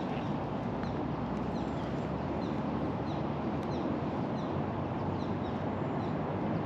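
Steady low background noise, with a small bird repeating short, falling chirps about every half second.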